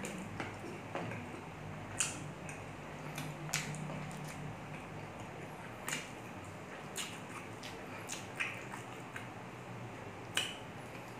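Close-miked mouth sounds of eating pork ribs by hand: chewing with irregular sharp, wet lip smacks every second or two.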